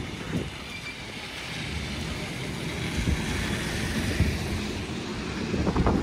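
Passing city street traffic: a steady low rumble with a hiss that swells and fades over the middle few seconds.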